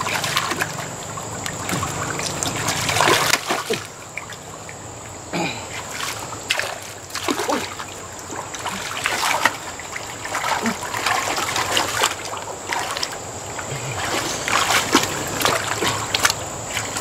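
Irregular splashing and sloshing in shallow muddy water as hands grope for and grab fish.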